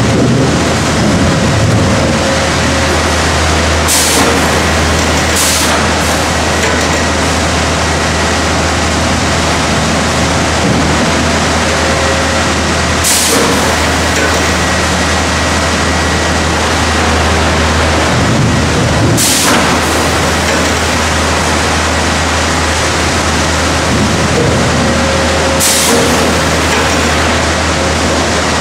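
Sawmill log infeed conveyor and step feeder running loudly and steadily, with a constant low hum and a faint high whine, as logs are carried through on chains and feed rolls. Brief hisses break in five times, several seconds apart.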